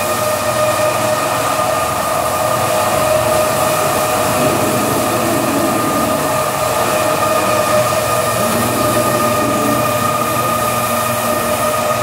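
Automatic carpet washing machine running: a steady motor whine in several pitches over the hiss of water spraying and brushes scrubbing a wet carpet.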